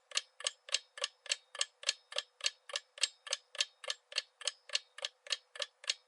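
Countdown-timer sound effect: even, clock-like ticking at about three and a half ticks a second, marking the answer time for a quiz question.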